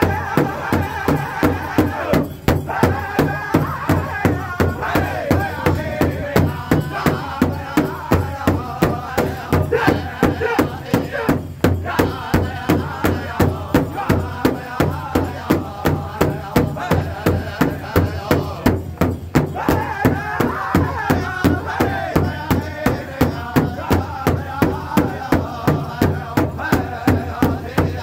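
Powwow drum group: many drumsticks striking a large hide-headed powwow drum together in a steady beat of about two to three strikes a second, with men's voices singing over it.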